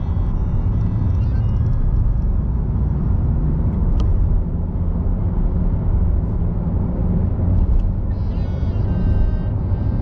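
Steady low rumble of a car's tyre and engine noise, heard from inside the cabin while driving, with one sharp click about four seconds in.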